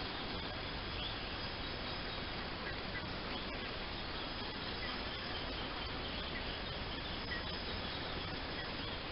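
Steady outdoor background hiss with a few faint, short, high chirps from distant birds scattered through it.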